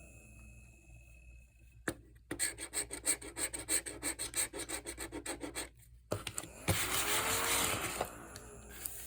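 Scratching the coating off a scratch-off lottery ticket: a quick run of short back-and-forth scrapes, about six a second, in the middle, then a second stretch of scratching.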